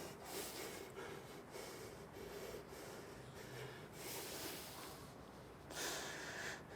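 A person's breathing: a series of short, hissing breaths, with a longer, louder one near the end.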